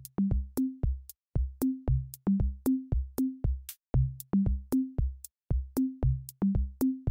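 Background electronic music: a drum-machine beat of short, low, pitched bass-drum and synth notes, about three a second.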